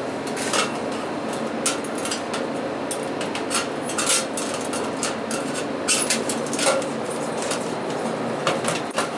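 Sheet-metal ballast cover of a fluorescent light fixture being worked into its grooves: repeated light metallic clicks, knocks and scrapes, irregularly spaced, over a steady background noise.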